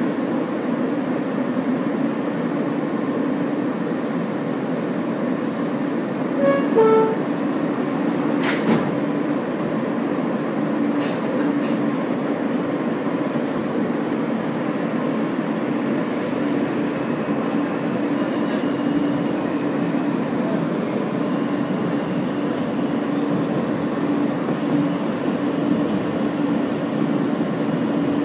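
R160 subway car heard from inside as it pulls out and runs along the track: a steady rumble with a constant low hum. About seven seconds in comes a brief falling run of short tones, and sharp clicks and knocks from the wheels on the rails come now and then.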